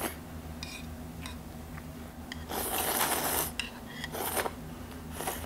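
A person slurping noodles and broth from a bowl: one long slurp about two and a half seconds in, then two short slurps near the end, over a steady low hum.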